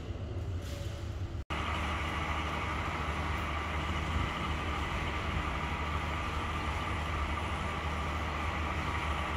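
Steady train noise: a low rumble and hiss that cuts out briefly about a second and a half in, then returns as a louder steady hum and hiss.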